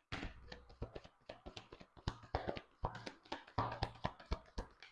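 Deck of tarot cards being shuffled by hand: a quick, irregular run of card slaps and clicks with a few short pauses, stopping near the end.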